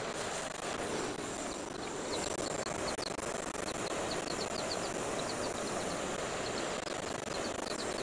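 Steady hiss of a gas torch heating a tube-to-plate joint for brazing, with a run of quick high chirps in the background from about a second and a half in.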